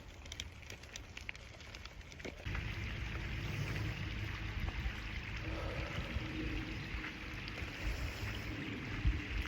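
Steady rush of running water with a low rumble, starting suddenly about two and a half seconds in; before that, only faint clicks.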